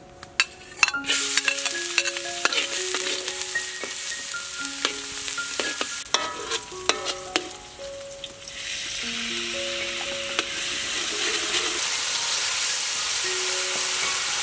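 Oil in a hot wok sizzling, faint at first, then much louder and steady about eight seconds in as chopped garlic and green onion go into the oil to fry. A few sharp clicks come early on.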